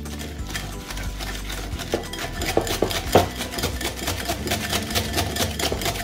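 Wire whisk beating egg into a butter, sugar and ground-almond mixture in a ceramic bowl: rapid, steady clicking of the wires against the bowl.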